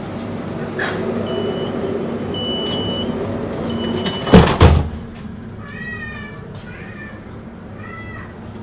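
DUEWAG B80D light-rail car running, with a few brief high steady squeals. About four and a half seconds in come two sharp loud blasts in quick succession, then a quieter stretch with a few short high-pitched calls.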